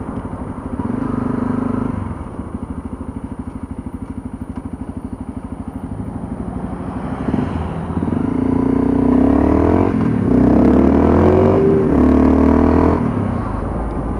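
Honda CRF250L's single-cylinder four-stroke engine, first running low with an even pulse, then accelerating from about seven and a half seconds in, its pitch rising in steps with two short breaks for upshifts before it settles to a steady cruise near the end.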